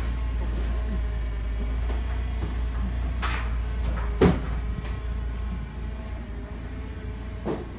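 Two sharp knocks, the loudest about four seconds in and a second near the end, with a short scrape just before the first, over a steady low rumble: wood and furniture being handled at a shipping container during unloading.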